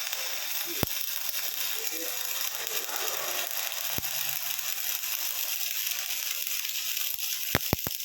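Steady high-pitched hiss of a gas welding torch burning, with a few sharp clicks, most of them bunched together near the end.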